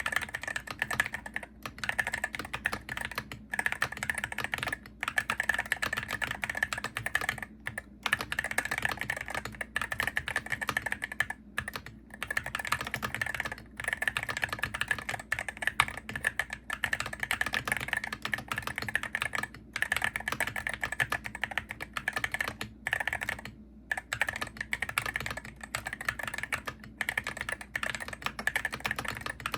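Typing on a Hero68HE gaming keyboard: a fast, continuous run of key clicks with brief pauses every few seconds.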